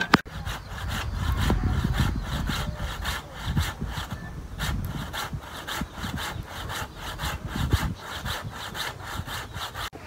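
A green tree branch being sawn through by hand with quick, even back-and-forth strokes, about three to four a second.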